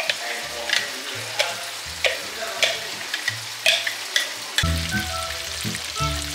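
Chicken skin frying in oil in a pan, rendering its fat: a steady sizzle broken by sharp taps or pops about once or twice a second. Background music with a bass line comes in about four and a half seconds in.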